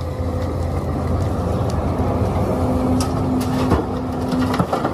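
Large diesel engine of a Sumitomo crawler excavator running under load while it works, a steady low drone with a held hum that swells slightly in the middle. A few sharp knocks sound around three to four seconds in.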